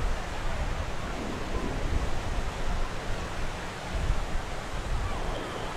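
Wind buffeting the microphone over a steady wash of beach surf, with uneven low rumbles from the gusts.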